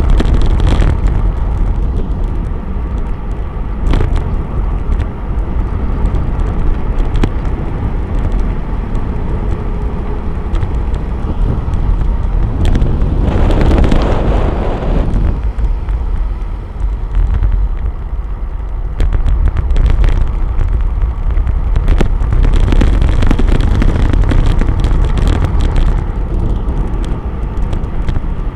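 Wind rushing over the microphone of a camera on a bicycle descending fast: a steady low rumble, with a louder rushing swell about halfway through.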